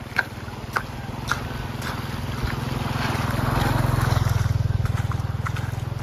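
An engine running with a steady low pulsing hum that swells to its loudest about four seconds in and then eases off, like a motor vehicle drawing near and passing. Three short sharp clicks come in the first second and a half.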